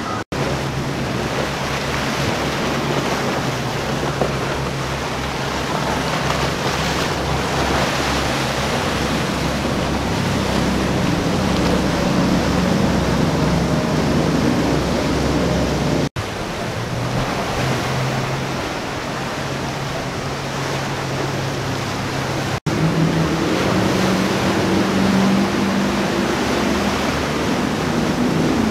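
Outboard-powered center-console boats, Boston Whalers among them, running past at speed through rough water: a steady low engine drone under the rush of spray and wake, with wind on the microphone. The sound drops out for an instant twice, a little past the middle and about three-quarters through.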